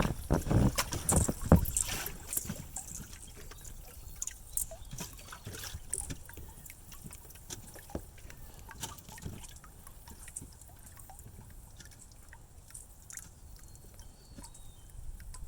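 Thin ice on a nearly frozen canal making strange sounds: a run of sharp cracks and thuds in the first two seconds, then quieter scattered ticks and pings with a few faint high chirps.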